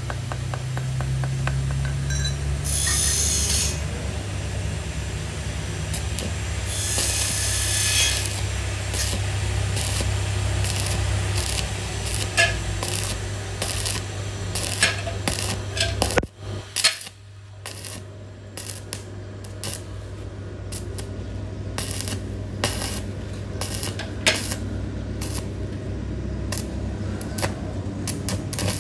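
Repeated sharp metal clinks and taps at irregular intervals over a steady low electrical hum, with two brief hissing bursts about three and seven seconds in.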